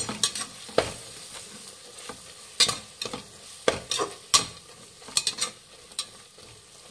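Slotted steel spatula scraping and clacking against an aluminium pressure cooker as onion, tomato and spice masala is stirred in hot oil, with a sizzle underneath. The strokes come irregularly, roughly one every half second to second.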